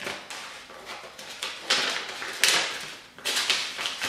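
Paper envelope and paper banknotes rustling and crinkling as cash is slid into a white envelope, in several short bursts, the loudest a little past halfway.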